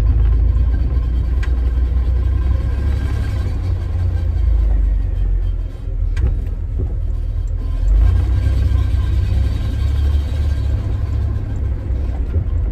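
Cab-interior engine and driveline rumble of a 1992 GMC Sonoma pickup with its 4.3-litre V6, pulling up a slope under load. It is a heavy, steady low drone that dips briefly about halfway and swells again just after, with a few sharp clicks.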